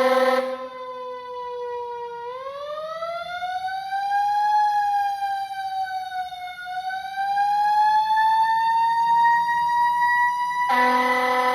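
Fire truck siren wailing, its pitch sliding slowly down, up, down and up again over several seconds. A fire truck horn blast is dying away at the very start, and another blast cuts in over the siren near the end.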